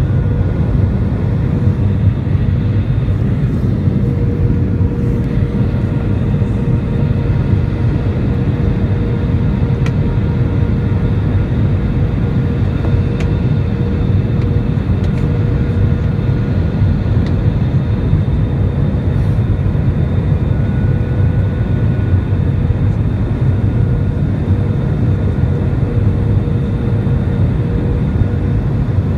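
Cabin noise inside a jet airliner on final approach: the steady rumble of the underwing turbofan engine and the rush of air over the fuselage, with a faint steady hum in it.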